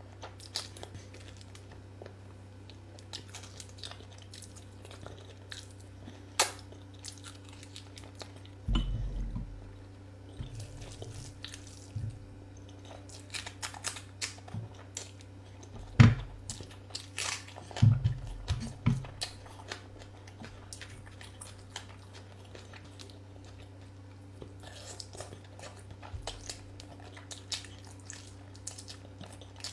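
Close-up eating sounds: chewing, crunching and wet mouth noises, with scattered small clicks and a few heavier low thumps, over a steady low hum.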